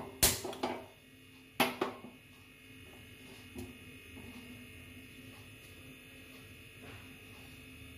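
Two sharp clicks of a hand-held spark gas lighter, about a second and a half apart, lighting a gas stove burner. A faint steady hum follows.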